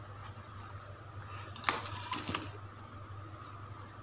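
Lumps of jaggery tipped into a pan of hot water: a brief splash and clatter just under two seconds in, over a low steady hum.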